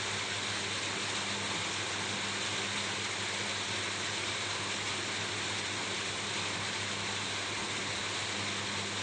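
Steady rain falling on a roof, an even hiss without separate drops or pauses, with a steady low hum underneath.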